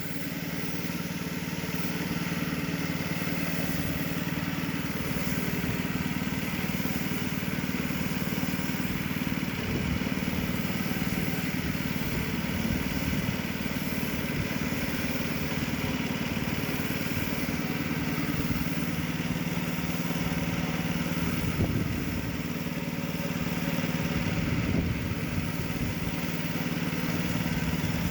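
A motor running steadily, with a constant hum and an even hiss over it.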